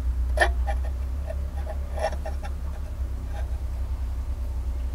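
Steady low background rumble with a few faint clicks and ticks as the vane flap of a Peugeot 205 CTI's airflow meter is swung through its travel by hand, engine off.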